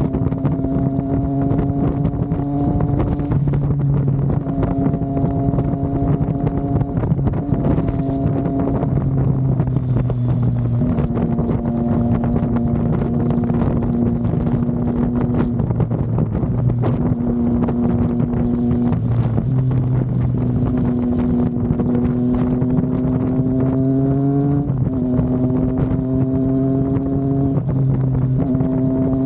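Triumph Daytona 660's inline three-cylinder engine running under way, its note rising gently and breaking off briefly several times, with wind rushing over the microphone.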